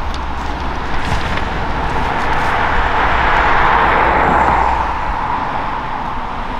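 Airbus H135 helicopter's twin Pratt & Whitney PW206B3 turboshaft engines and main rotor running on the ground before take-off: a steady turbine whine over a low rumble, with a broad rush swelling louder about three to four and a half seconds in.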